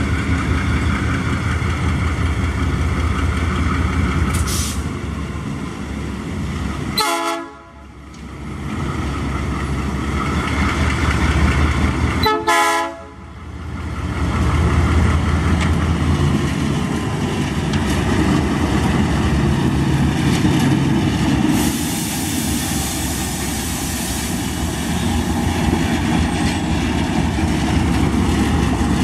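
GE U20C diesel-electric locomotive's 12-cylinder engine running loud and steady as the locomotive moves past at slow speed. Two brief sharp sounds break in about 7 and 12 seconds in, and a hiss rises for a few seconds past the middle.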